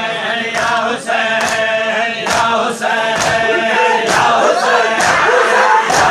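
Male mourners chanting a noha together, with sharp matam chest-beating strikes keeping time about twice a second.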